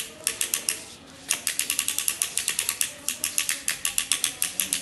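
Baby's push walker clicking as it is pushed along: sharp, even ratchet-like clicks, a few at first, then a steady run of about six a second from just over a second in.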